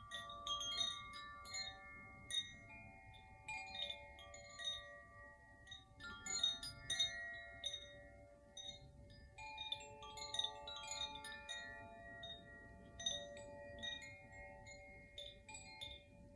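Gentle instrumental music of struck, bell-like chime tones that ring on and overlap in a slow melody.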